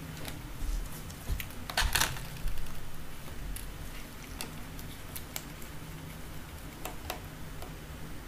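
Scattered small clicks and taps of gloved hands handling a smartphone on a workbench and setting a screwdriver to the screws in its back, with a few sharper clicks about two seconds in, over a low steady hum.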